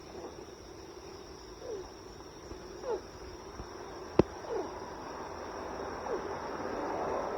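A cat giving short, soft mews that fall in pitch, about one every second and a half, with one sharp click about four seconds in.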